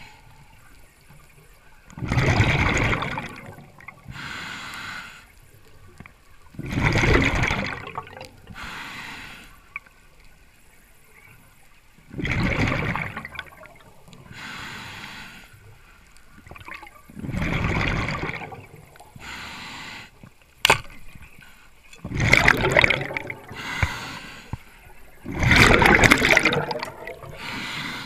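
Scuba diver breathing through a regulator underwater: a loud gush of exhaled bubbles about every five seconds, with a softer hiss of each breath drawn in between them. A single sharp click comes about two-thirds of the way through.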